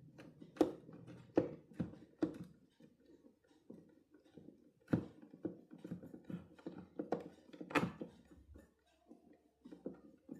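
Irregular light clicks and knocks of small parts being handled and fitted by hand, a few sharper clicks standing out among softer taps.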